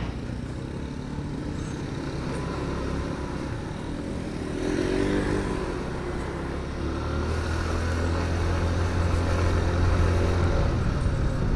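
Motor scooter engine running while riding along a street, with road and wind noise. About five seconds in, an engine note briefly rises and falls.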